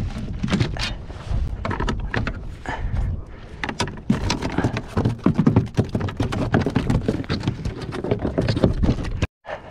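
Irregular knocks and clatter of a Skulldrag Nemesis landing net and a netted flathead being handled on a plastic kayak deck, the net frame and fish bumping against the hull. The sound cuts out for a moment near the end.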